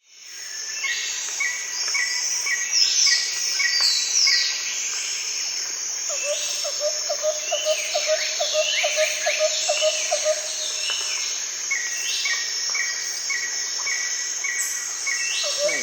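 Tropical forest ambience: a steady high insect drone under many bird calls. The calls include strings of short repeated chirps, down-slurred whistles, and a quick run of lower notes in the middle.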